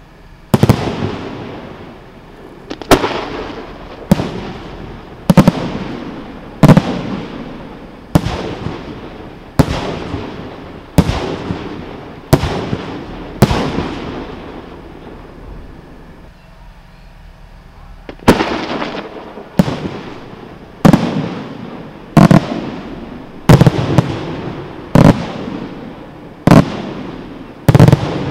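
Aerial firework shells bursting one after another, a sharp bang roughly every second and a half, each trailing off in an echo. The bangs stop for about four seconds in the middle, then resume at the same pace.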